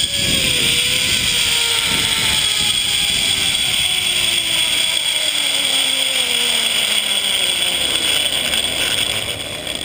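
Zip-line trolley's pulley wheels running along the steel cable with a steady whir, its tones falling steadily in pitch as the rider slows toward the landing platform, over wind noise on the microphone. The sound drops off about nine seconds in.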